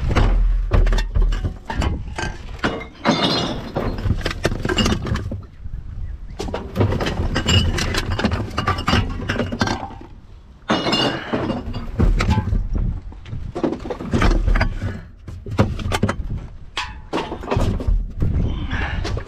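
Glass bottles and other containers clinking and knocking together as the contents of a kerbside bin are rummaged through. It is a rapid, irregular run of clinks with a few low thumps and a quieter spell about ten seconds in.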